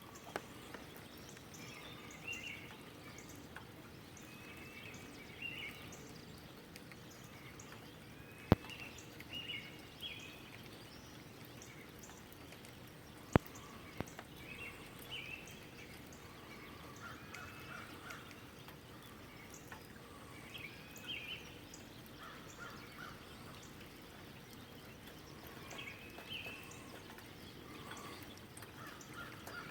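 Neighbourhood songbirds singing short chirping phrases repeated every few seconds, over a faint steady wash of light drizzle and water running from a downspout. A few sharp single drips or taps stand out, the loudest about eight and thirteen seconds in.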